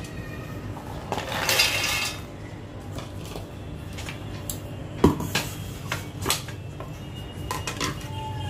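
Dry makhana (fox nuts) rattling as they are tipped into a stainless steel mixer-grinder jar, followed by a few sharp clinks and knocks of the steel jar being handled.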